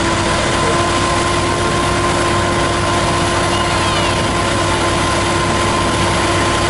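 Airport fire truck's engine and water pump running steadily at high revs while its roof turret sprays water: a steady whine over a broad rushing noise.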